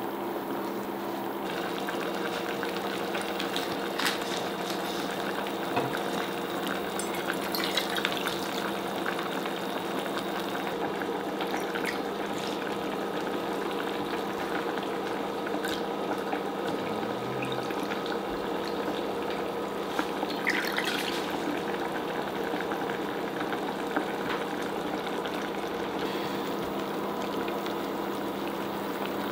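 Broth bubbling steadily in a stainless saucepan on an induction hob, over a steady hum, with a few light knocks of pans and utensils.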